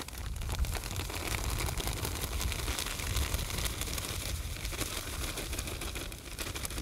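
Plastic bag crinkling and rustling as dry groundbait is poured from it into a plastic bucket, a continuous dense crackle of fine clicks.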